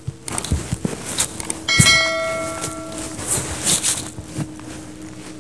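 A bell struck once, ringing with a clear metallic tone that fades over about a second and a half, after a few short clicks. Footsteps crunch on stony ground around it.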